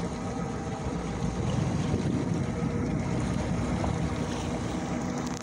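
Outboard motor of a small fishing boat running steadily at slow trolling speed, with wind noise on the microphone.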